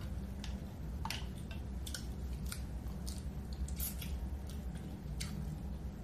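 Close-up eating sounds of a cooked shrimp being handled and bitten out of its shell: irregular wet clicks and smacks of biting and chewing. A steady low hum runs underneath.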